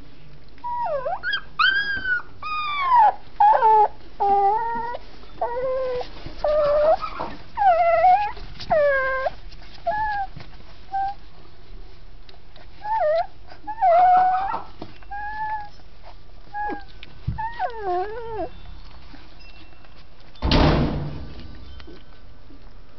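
Dachshund puppies whimpering and whining: many short, high-pitched cries that rise and fall in pitch, spread over most of the first eighteen seconds. A brief burst of noise follows about twenty seconds in.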